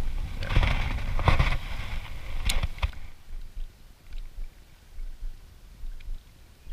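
Wind rumbling on the microphone with a few sharp handling clicks in the first three seconds, then dying down to a faint outdoor hush with scattered small ticks.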